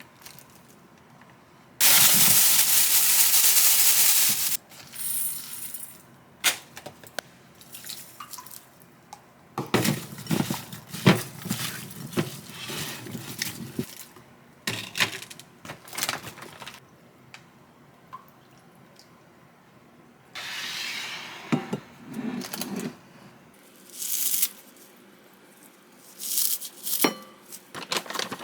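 Kitchen sounds: a few seconds of running tap water, then scattered clinks and clatter of dishes and utensils being handled.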